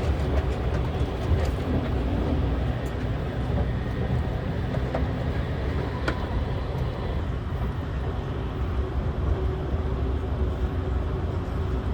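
Steady running noise heard inside the cabin of the Limited Express Shinano train: a low rumble of wheels on rail, with a few faint clicks.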